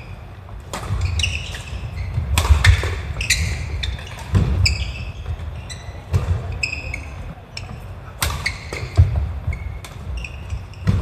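Badminton rally on a wooden sports-hall floor: sharp racket strikes on the shuttlecock, short high-pitched squeaks of court shoes and heavy footfalls as players lunge and recover, all with a hall's echo.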